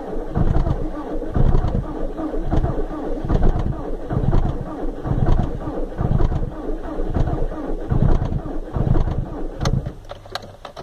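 VW Golf IV 1.9 TDI PD four-cylinder diesel being cranked by its starter at −18 °C without catching. It turns over slowly and laboriously, in heavy rhythmic surges about once a second. About ten seconds in the cranking stops with a few clicks, leaving a faint steady hum.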